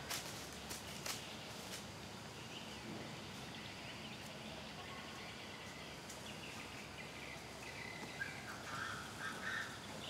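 Quiet outdoor ambience with faint bird calls: a short run of chirps about eight and a half to nine and a half seconds in, and a few soft clicks in the first couple of seconds.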